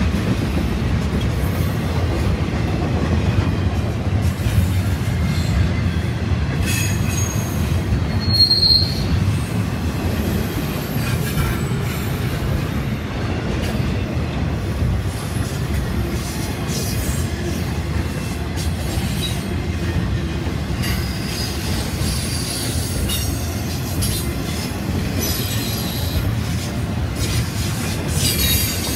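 BNSF intermodal freight train passing at speed: cars loaded with truck trailers and stacked containers rolling by. Steel wheels on rail make a steady rumble with scattered clicks, and there is a brief high wheel squeal about eight seconds in, with fainter squeals later.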